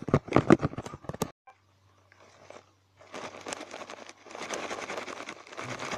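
Dry grass stalks rustling and crackling against the camera as it pushes through them, starting about halfway in. Before it comes a quick run of sharp knocks in the first second, then a short near-silent gap with a faint low hum.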